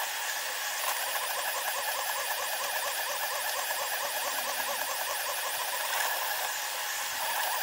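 Delta 3D printer's stepper motors and fan sped up in a time-lapse, giving a high, wavering whine that wobbles up and down several times a second over a steady hiss.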